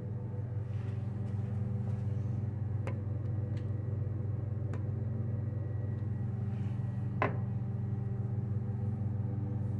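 Steady low mechanical hum in a small tiled room, with a few light clicks and taps; the sharpest click comes about seven seconds in.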